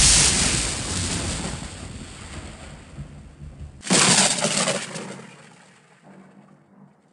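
Two close thunderclaps: a sharp crack right at the start that dies away into a rumble over about three seconds, then a second crack about four seconds in that fades out near the end.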